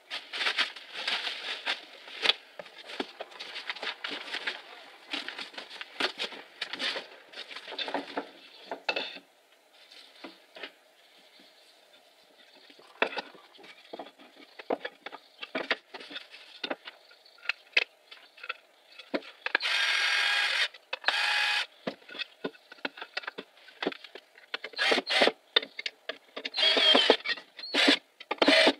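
Bubble wrap and plastic packaging crackling and rustling as they are pulled out of a cardboard box for the first third. Then loose pine boards knock and clatter, and a cordless drill-driver runs in short bursts, driving screws into the wooden frame.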